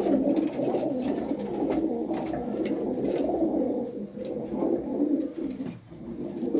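A flock of domestic pigeons cooing in an enclosed loft, many low coos overlapping continuously, easing off briefly near the end.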